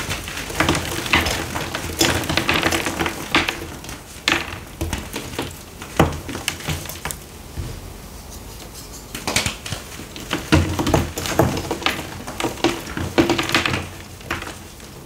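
Chunks of blue-dyed reformed gym chalk being squeezed and crushed by hand, crumbling with dense crunchy crackles. The crunching comes in two busy spells with a quieter lull in the middle and a sharp snap about six seconds in.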